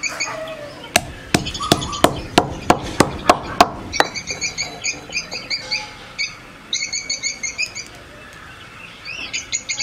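Stone pestle pounding dried ginger in a stone mortar: about ten sharp knocks, roughly three a second, from about a second in until about four seconds in. Birds chirp in quick repeated runs around the pounding.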